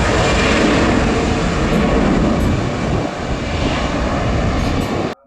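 Passenger jet airliner's engines running, played as a sound effect: a loud, steady rushing noise that cuts off abruptly near the end.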